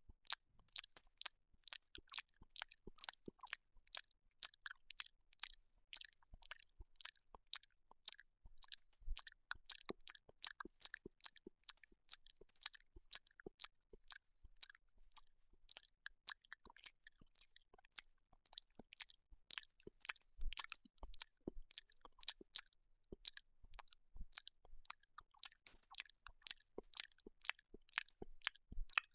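A small terrier licking a touchscreen: a steady run of quick, wet tongue clicks and smacks, several a second at an uneven pace.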